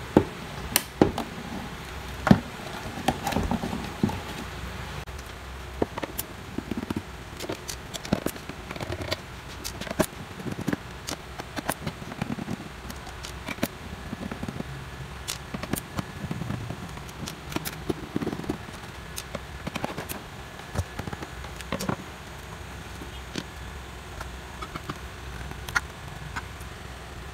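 Scattered clicks and small taps of a solar flood light being taken apart by hand: screws coming out and the housing being handled and opened.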